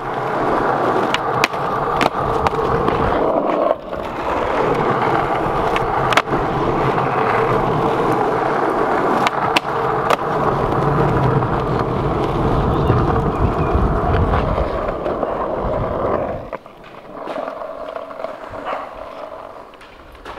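Skateboard wheels rolling over pavement with a steady rumble, broken by sharp clacks of the board. The rolling cuts off suddenly about three-quarters of the way through, leaving a quieter rolling sound.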